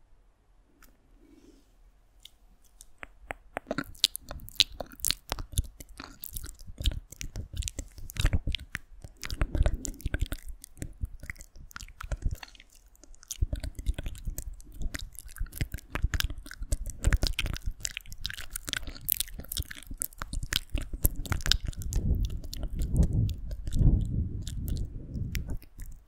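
Close-miked ASMR mouth sounds: a dense, irregular run of wet clicks and smacks, with soft low muffled thuds mixed in around the middle and through the second half.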